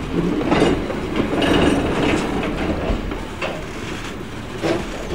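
Passenger railroad coach rolling slowly along the track: a steady rumble of steel wheels with irregular clunks as they pass over rail joints.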